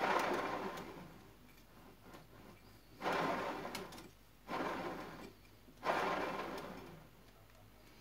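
Shimano XT crankset spinning freely on a KCNC roller-bearing bottom bracket, flicked round by hand four times. Each spin starts suddenly with a whirring that dies away over about a second.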